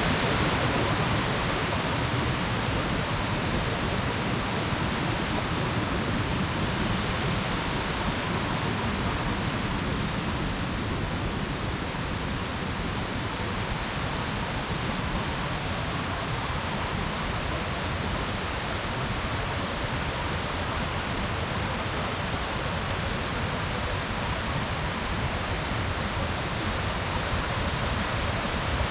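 Waterfall and rapids rushing: a steady, even sound of falling water that holds unchanged throughout.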